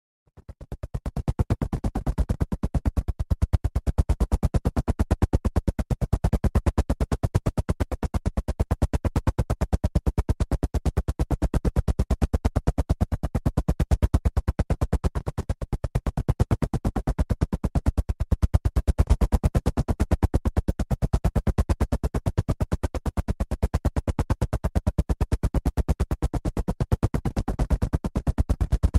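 Helicopter rotor blades chopping in a rapid, even beat, fading in over the first second and then running steadily with slight swells in loudness.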